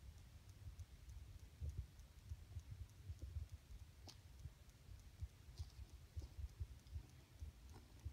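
Quiet outdoor ambience: a low rumble with irregular soft thumps, and faint high ticks repeating about three times a second.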